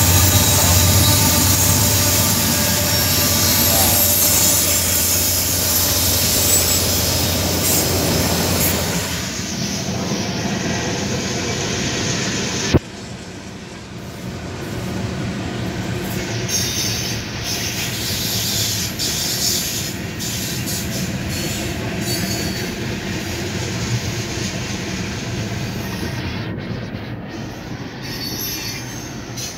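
Norfolk Southern freight train rolling past: a low diesel locomotive drone for the first several seconds, then a string of covered hopper cars passing with steady wheel-on-rail noise. About a third of the way in there is a sharp click, and the sound is quieter after it.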